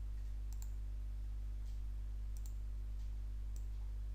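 Computer mouse clicking a few times, some clicks in quick pairs, over a steady low electrical hum.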